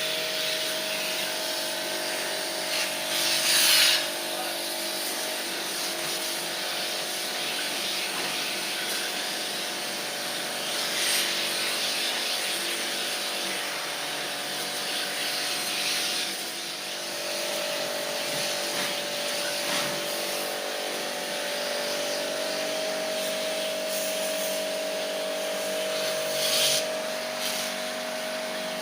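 Small electric pressure-washer motor running steadily during AC coil cleaning, with the water spray hissing louder in a few short spells.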